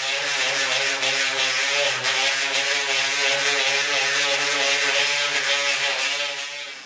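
Small electric detail sander running steadily against the surface of a sculpted bust: a constant motor hum under a gritty sanding hiss, stopping near the end.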